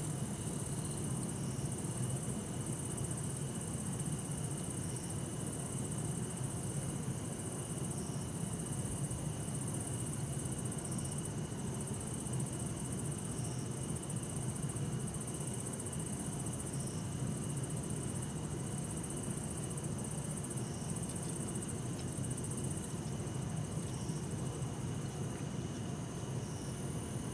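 Bell crickets (suzumushi) and other night insects singing in a steady high trill, with short chirps every second or few. Under them runs a steady low city rumble of distant traffic.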